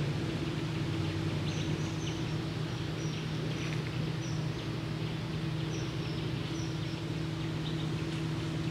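A steady low mechanical hum from an unseen motor, with short high bird chirps repeating over it.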